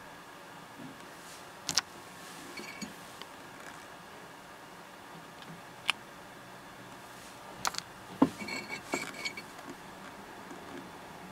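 Pieces of rough opal clicking and clinking against each other and a hard surface as they are handled: a few sharp clicks, two short runs of light ringing clinks, over a steady faint hiss.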